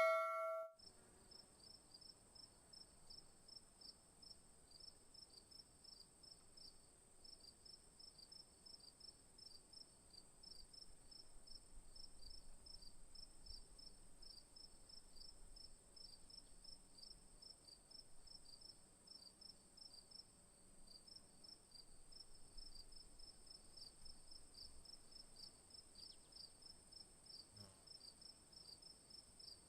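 Crickets chirping faintly: a fast, pulsing chirp together with a steady high trill, continuing without a break. A bell tone dies away in the first second.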